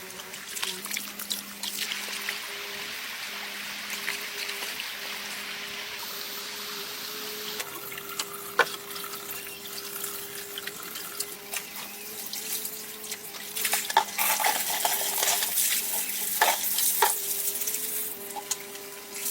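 Running, splashing water with scattered clicks and knocks, getting louder and busier about two-thirds of the way through.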